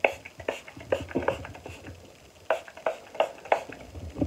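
A pump-mist facial spray bottle spritzed toward the face, giving a string of short, irregular sprays and pump clicks.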